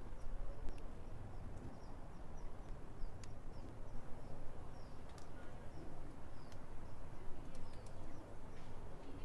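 Faint outdoor background with small birds chirping repeatedly, short high chirps.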